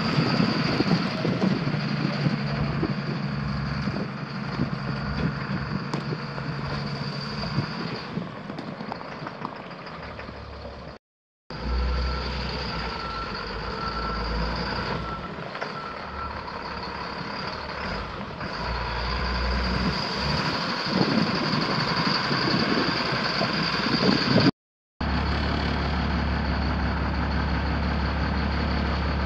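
Caterpillar C7 inline-six diesel of a 2005 Chevrolet C6500 box truck running. A backup alarm beeps for a few seconds around the middle. The sound drops out suddenly twice, briefly.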